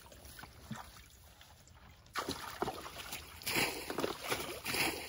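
Shallow muddy water splashing and sloshing as people wade through a half-drained ditch, catching fish by hand. It is fairly quiet for about two seconds, then a run of irregular splashes follows.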